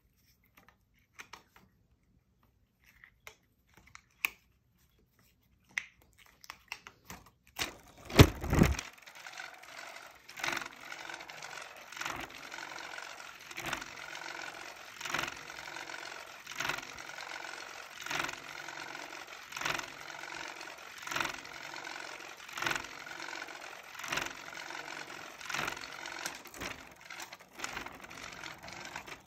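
Electric spinning-butterfly cat toy: its small motor starts whirring steadily about eight seconds in, after a loud knock, with a click about every second and a half as the wire arm goes round. Before that, only a few light taps and clicks.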